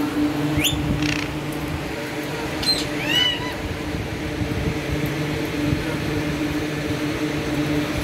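Alexandrine parakeets giving a few short calls in the first few seconds, each one rising or arching in pitch, over a steady low hum.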